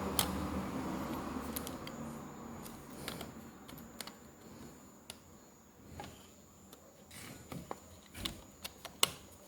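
Small, sharp clicks and taps of tablet parts being handled as the board is fitted back into the casing, coming more often near the end. A low steady hum fades out over the first few seconds.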